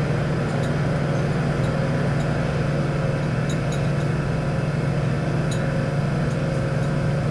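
A steady low machine hum, with a few faint light ticks as the inside of a glass filter flask is scraped.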